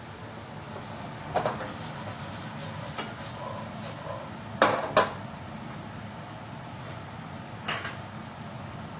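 Stainless-steel cookware knocking and clinking on a gas range: a few sharp metal knocks, the loudest two close together about halfway through, over a steady background hiss.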